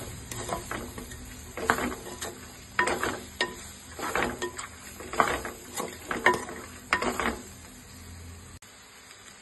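Wooden spatula stirring diced ridge gourd in a clay cooking pot, scraping and knocking against the pot every second or so over a low sizzle of the spiced oil. The stirring stops near the end.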